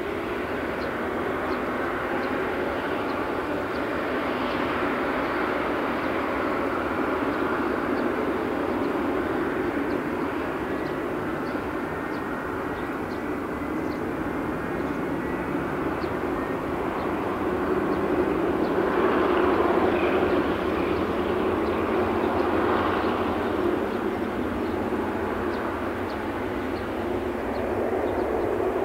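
Turbofan engines of a Boeing 747-8 freighter (GEnx) running at taxi power: a steady jet rumble with a faint high whine. The sound swells for a few seconds about two-thirds of the way through, then eases back.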